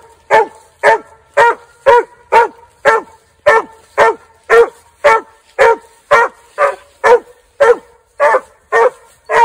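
Young hound barking treed at a squirrel up a tree trunk: a steady, unbroken run of short barks, about two a second.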